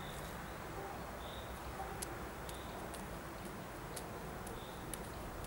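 Quiet outdoor ambience: a steady low background rumble with faint, scattered bird chirps and a few light ticks.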